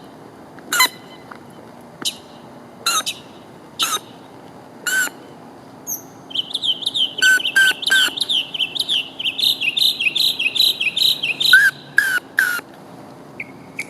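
Northern mockingbird singing: first a few separate short notes about a second apart, then a fast run of repeated chirps, about five a second, that lasts several seconds. The bird is imitating a whistle blown on a blade of grass.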